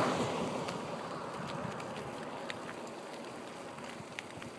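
Rushing noise of riding a bicycle along an asphalt road, wind over the microphone and tyres on the pavement, loudest at the start and easing off over the first second or two. Scattered small clicks and rattles run through it.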